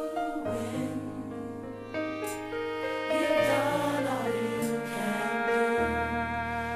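Gospel choir song: voices singing over held instrumental chords.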